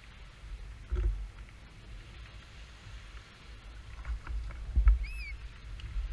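Knocks and thumps on a plastic fishing kayak as the angler shifts and handles his rod, over a low rumble on a body-worn microphone. The loudest thumps come about one second and five seconds in, with a short high chirp that rises and falls just after the second.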